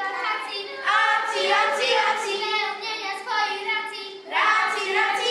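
A group of children singing together in phrases of held notes, with a short break about four seconds in.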